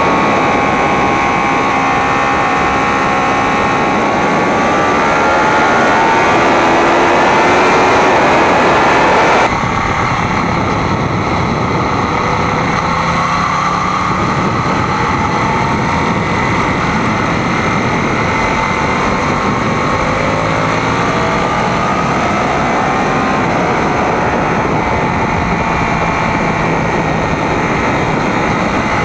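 Sport motorcycle engine recorded from an onboard camera at track speed, its pitch rising and falling as the rider accelerates and shifts, over a steady rush of wind and road noise. The sound drops and changes abruptly about a third of the way through.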